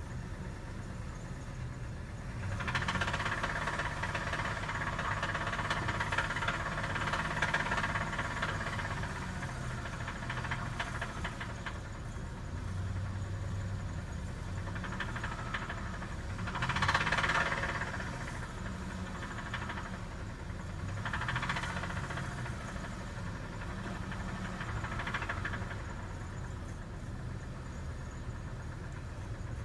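Cold car engine with a terrible rod knock: a fast, heavy knocking like a jackhammer under the running engine, swelling in louder spells several times as the engine is revved.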